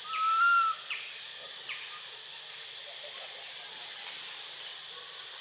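A young long-tailed macaque's high, clear coo call, about half a second long and rising slightly, followed by two short falling chirps. Under it runs a steady high hiss.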